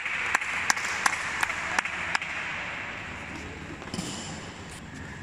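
Spectators in a badminton hall cheering, with rhythmic clapping at about three claps a second, after a point is won. The cheer fades away over about three seconds, and a single knock comes near the end.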